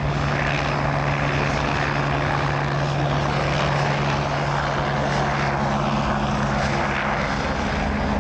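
Agusta A109BA helicopter's twin turboshaft engines and rotors running steadily: a constant low hum with a dense rushing sound over it.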